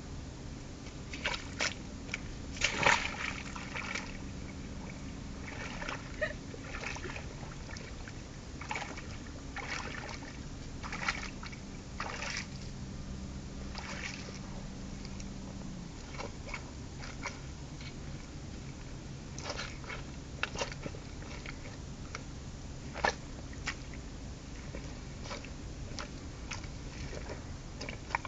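Rubber boots stepping in wet mud and shallow puddle water: irregular squelching, sucking and splashing steps, the loudest cluster about three seconds in. A steady low hum runs underneath.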